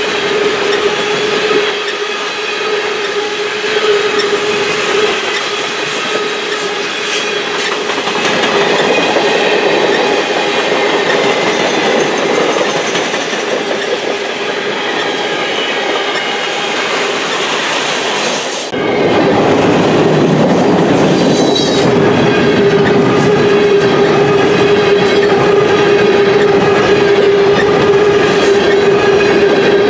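Loaded freight cars (tank cars and boxcars) rolling past at track speed: continuous steel-wheel-on-rail noise with a steady high ring over it. About two-thirds of the way through, the sound cuts abruptly to a louder, deeper rumble.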